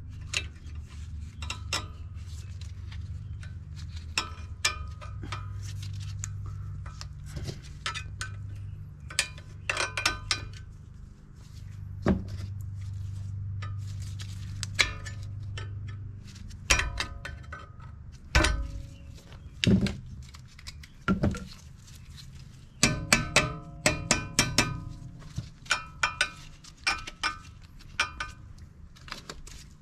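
Hand tools clinking on metal and a ratchet clicking in quick runs while the bolts of a car's front brake caliper bracket are tightened. A steady low hum runs underneath and is strongest in the first half.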